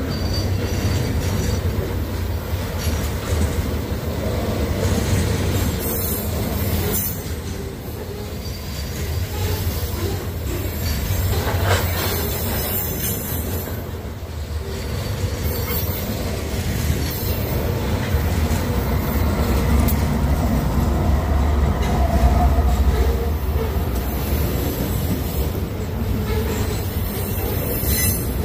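Loaded grain hopper cars of a long freight train rolling past: a steady low rumble with wheel clatter on the rails.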